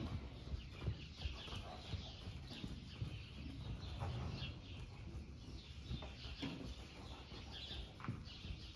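A horse's hooves on soft arena footing as it circles on a lunge line, with birds chirping over it repeatedly.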